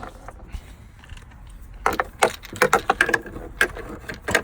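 Clicks and knocks of plastic hot tub pump fittings being handled and tightened by hand, a quick run of them starting about two seconds in.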